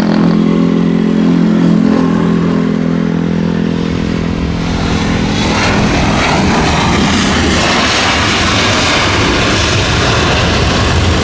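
Jet airliner engines: a steady low engine hum fades over the first few seconds, then a broad jet roar builds from about five seconds in and holds.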